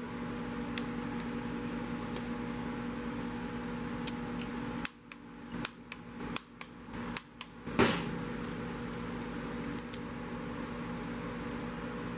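Steady low hum with a cluster of sharp clicks and knocks from about five to eight seconds in, the loudest near the end of the cluster.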